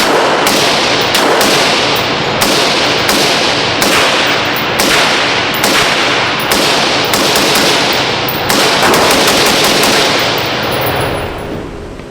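A string of gunshots, about two a second with a quicker volley near the end, echoing heavily so the shots run together, then dying away.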